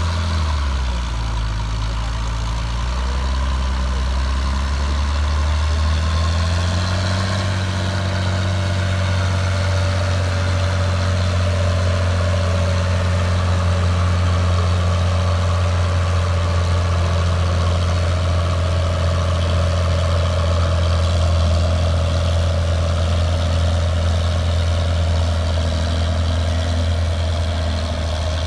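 Large farm tractor's diesel engine running at low, steady speed. Its speed dips just at the start, picks up again about six seconds in, and then holds steady.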